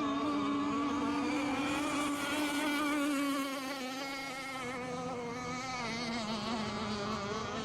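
Radio-controlled racing boat engines running flat out around the course: a steady, high buzzing drone whose pitch wavers slightly, dropping a little in level near the middle and building again toward the end.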